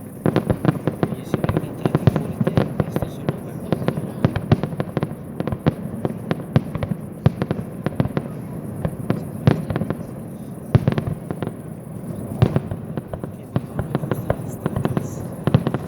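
Aerial fireworks display going off in a dense, continuous barrage of sharp bangs, several a second and irregular, with louder single bangs scattered throughout.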